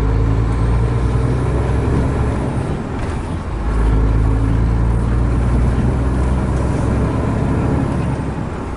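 Truck's diesel engine running steadily while driving off. The engine sound drops briefly about three seconds in and again near the end.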